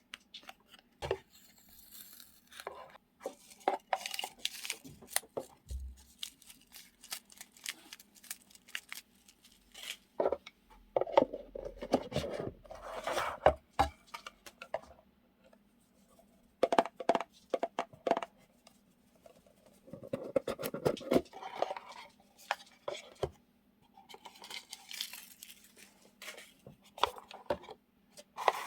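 Paper journaling supplies such as stickers being handled and sorted into storage boxes: irregular rustling, crinkling and light taps and clicks. There are louder, denser stretches of rustling about 11 and 20 seconds in.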